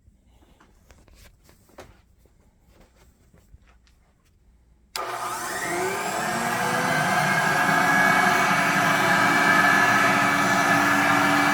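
A few faint clicks and handling taps, then about five seconds in a vintage Regina Super Power electric broom vacuum cleaner switches on suddenly. Its motor spins up with a rising whine over a second or two, then settles into a steady run.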